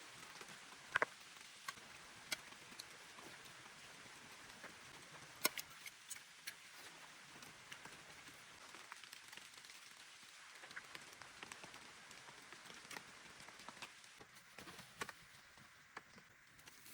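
Rain falling steadily, with scattered sharp drips and taps of large drops landing close by.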